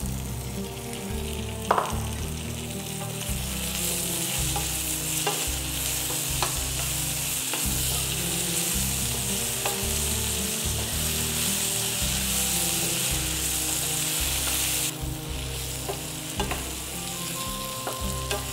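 Chopped tomato, onion and dried red chillies sizzling in oil in a stainless steel frying pan, stirred with a spatula that clicks against the pan now and then. The sizzle is strongest through the middle and eases a few seconds before the end.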